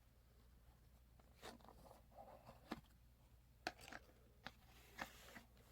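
Near silence broken by about half a dozen faint rustles and taps: a small cardboard knife box and the knife's nylon sheath being handled.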